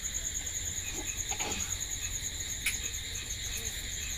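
Crickets chirping in a steady, rapid, high-pitched trill, with one faint click about two and a half seconds in.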